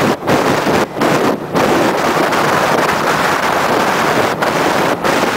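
Heavy wind noise buffeting the microphone of a moving camera, a loud steady rush that drops out briefly several times.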